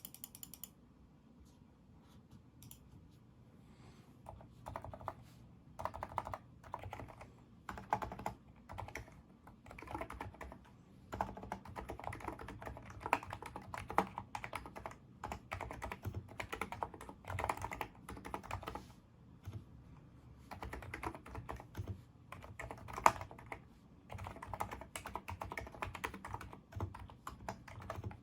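Typing on a NIZ Micro82 keyboard with 35 g electrostatic capacitive switches. After a few quiet seconds, the keystrokes come in quick runs broken by short pauses, with one noticeably louder stroke about two-thirds of the way through.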